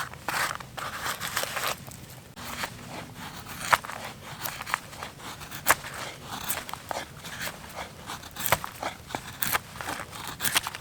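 Irregular crunching and sharp snaps of dry twigs and forest litter, with single loud cracks scattered through.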